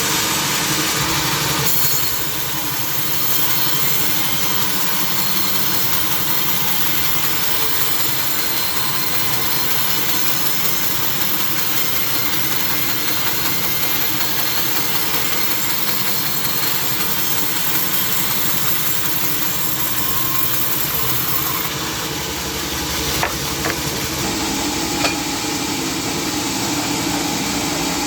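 Sawmill saw running steadily, with a hiss of cutting teak wood that starts about two seconds in and stops about twenty seconds later. The machinery keeps running after the cut, and two light knocks follow.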